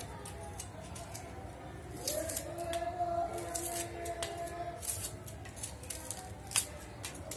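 Small kitchen knife slicing a red onion held in the hand: a run of crisp cutting clicks, with one sharper click near the end.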